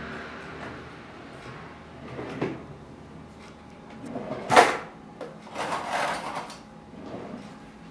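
Glasses and dishes being handled at a kitchen sink: a few light knocks, one sharp clatter just past halfway, then about a second of rushing noise.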